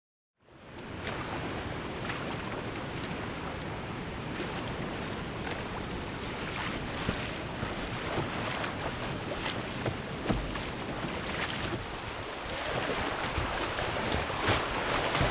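Rushing river water around a kayak's bow, mixed with wind on the microphone, with scattered short splashes. It cuts in about half a second in and grows louder near the end as the kayak runs into a rapid.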